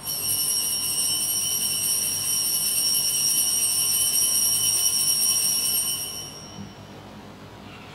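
Altar bells ringing continuously for about six seconds at the elevation of the consecrated host, then fading out; the ringing marks the consecration of the bread at Mass.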